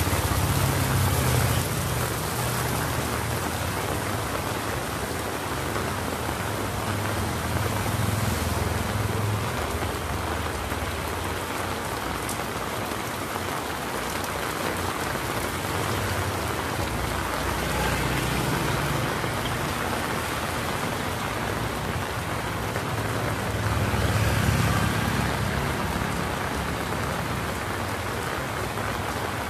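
Heavy rain falling steadily on a street and pavement, an even hiss. Low rumbles come and go beneath it, loudest just after the start and again about three-quarters of the way through.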